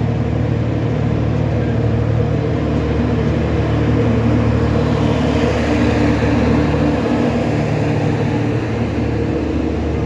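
Simhapuri Express passenger train running past, with a steady mechanical hum throughout. The hiss grows brighter for a couple of seconds about halfway through as the rear power car, which houses the train's diesel generator, goes by.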